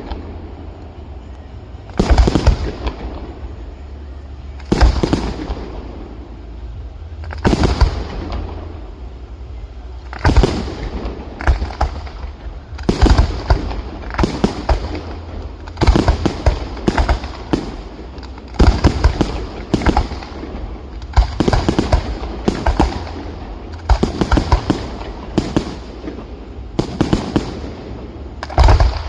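Fireworks display: firework shells bursting one after another with sharp bangs, each trailing off in a short echoing tail. The bangs come every two to three seconds at first, then quicken to one or two a second from about a third of the way in.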